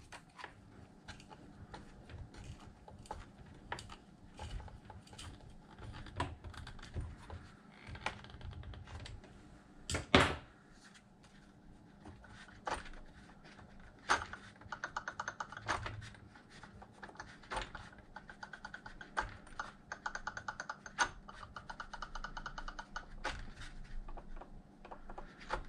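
Small clicks and taps of a steel hex key working the motor mount screws beside the pinion and spur gears of a Traxxas X-Maxx RC truck. There is one sharper knock about ten seconds in, and a run of quick ringing metallic ticks in the second half.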